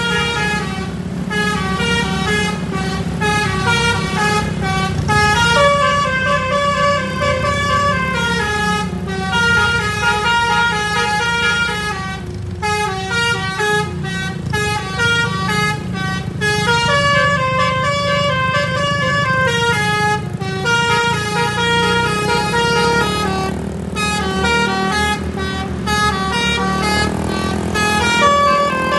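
A bus's basuri telolet horn, a multi-trumpet musical air horn, playing a melody of stepped notes that rise and fall, some held for about a second, over the bus engine's steady rumble.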